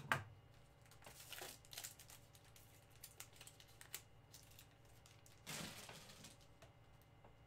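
Faint crinkling and rustling of a foil 2019 Donruss Baseball trading-card pack wrapper being handled and opened, with a louder rustle about five and a half seconds in.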